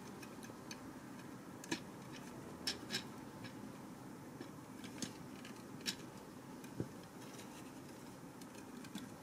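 Scattered light clicks and taps of hard plastic from the parts of a Mastermind Creations R31 Ater Beta transforming robot figure as its hands and swords are handled and posed, about eight short clicks at uneven intervals.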